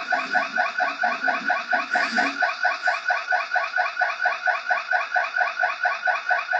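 Electronic alarm sounding continuously: a rapid train of short falling electronic tones, about five a second, steady in pitch and loudness.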